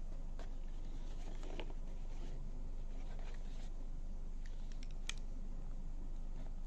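Light scattered clicks and scratches of a small cardboard box and a utility knife being handled. Near the end the knife blade works under the box's paper tape.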